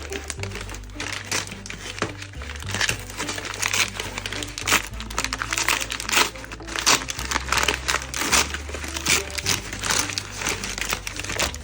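Packaging crinkling and rustling as a parcel is torn open and handled, with many quick irregular crackles, over background music with a steady low bass line.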